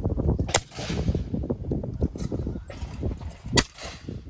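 Two sharp shotgun reports from a Beretta over-and-under at a clay shoot, about three seconds apart, the second louder, each with a short echoing tail, over a steady low rumble.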